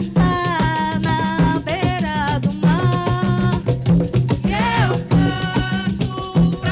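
Live music: a voice singing a melody over a steady, repeating low drum beat with hand percussion.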